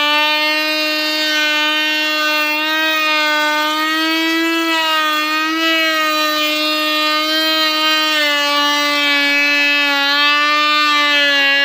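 Table-mounted router cutting a cornice profile into a wooden strip: a loud, steady high whine with many overtones, wavering slightly in pitch.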